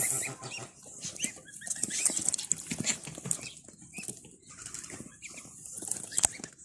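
Ducks and geese scuffling and flapping their wings as they are driven into their pen, with a few short calls, and one sharp knock near the end.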